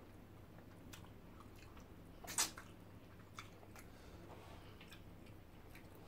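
Quiet close-up eating sounds: chewing and small mouth and finger clicks as fish pepper soup with starch is eaten by hand, with one louder short noise about two and a half seconds in, over a faint steady hum.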